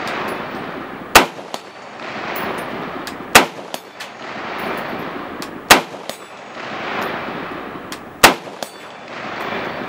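Four slow, aimed semi-automatic shots from a Romanian CGR AK-47 rifle in 7.62×39mm, about two to two and a half seconds apart. Each shot is followed about half a second later by a faint ping of the bullet hitting a steel target at 100 yards.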